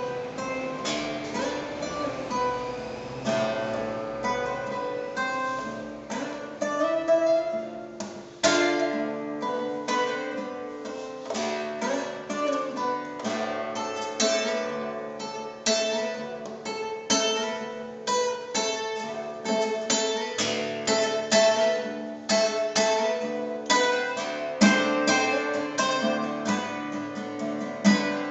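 Acoustic guitar improvising: plucked notes and chords in a free, shifting rhythm, with some strummed chords.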